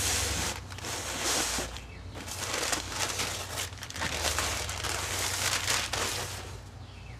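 Sheet of packing paper being handled and crumpled, rustling in a series of bursts over a steady low hum.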